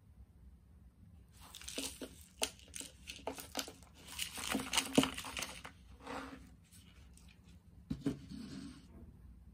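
Crinkling, rubbing and clicking of a paper instant-noodle cup and its sealed lid being turned over in the hand, in a dense run that starts about a second in and peaks in the middle, with another short bout near the end.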